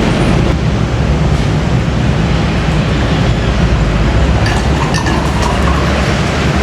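Loud, steady low machine rumble with a low drone, unchanging throughout.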